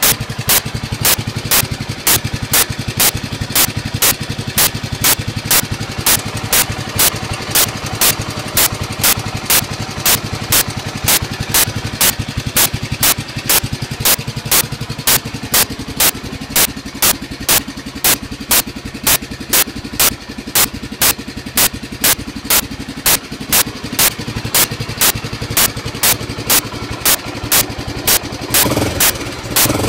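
Honda GB400TT Mk II single-cylinder engine idling steadily, with sharp ticks at a regular beat of about two a second, and a brief change in the engine sound near the end.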